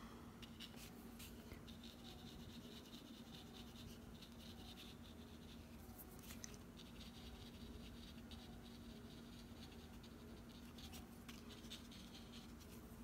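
Faint, soft scratching of a paintbrush stroking across textured watercolour paper, in stretches of one to three seconds with short pauses between. A low steady hum runs underneath.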